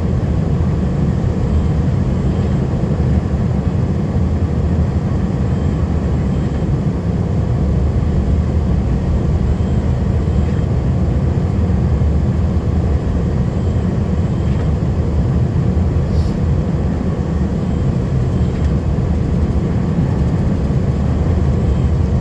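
Steady low drone of a vehicle's engine and road noise heard from inside the cab while driving.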